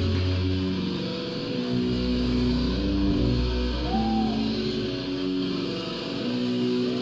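Live heavy rock band's guitars and bass playing a passage of held melodic notes with no drums.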